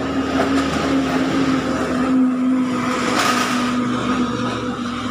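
A motor running with a steady hum and one held tone, loudest in the middle and fading near the end.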